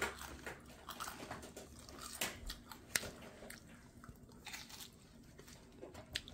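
A person biting and chewing food close to the microphone: irregular small crunches and mouth clicks, the sharpest about three seconds in.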